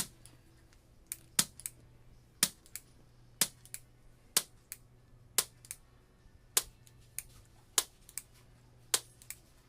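Handheld chiropractic adjusting instrument firing against a dog's spine during a veterinary orthopedic manipulation treatment pass. It gives a sharp click about once a second, each loud click mostly followed by a fainter one.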